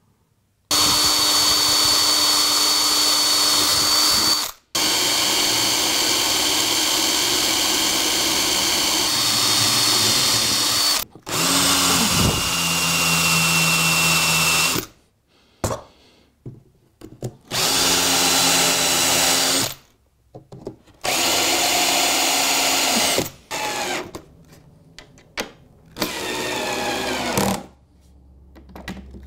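Cordless drill-driver driving wood screws through plywood into a timber frame: about half a dozen runs of a few seconds each, then shorter bursts near the end.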